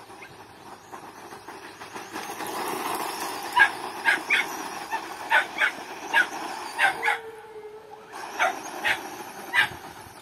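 A dog barking about eleven times in short runs, with a pause a little after halfway. Underneath is the steady sound of a brushless Thunder Tiger Phoenix XT RC stadium truck driving on loose dirt.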